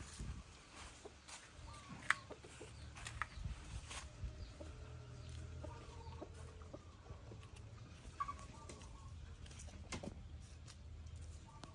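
A rooster under a wire cage clucking quietly, in low wavering calls. Sharp ticks and rattles come from the wire mesh, a few seconds apart, as small monkeys clamber over it.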